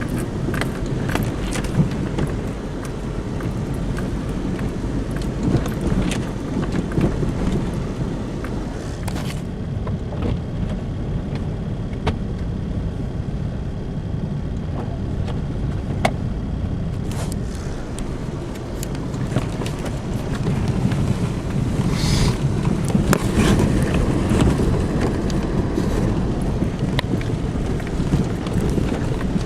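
Car driving on snow-covered roads, a steady low engine and road rumble heard from inside the cabin, with scattered short clicks and knocks.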